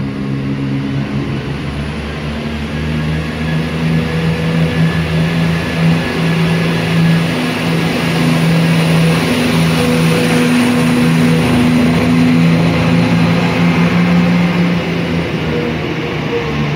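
Diesel multiple-unit passenger train running along the platform. Its underfloor engines drone steadily over wheel and rail noise, which grows louder over the first several seconds and then holds.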